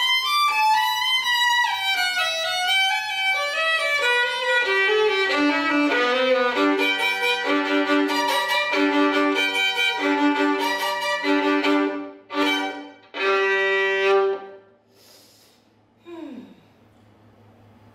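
Solo violin playing: a descending melodic line, then a passage of repeated notes, ending in a few short strokes before it stops about fourteen seconds in.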